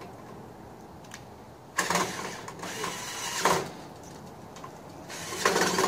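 Cordless drill driving a pig-roasting spit, running in short bursts to turn the whole pig.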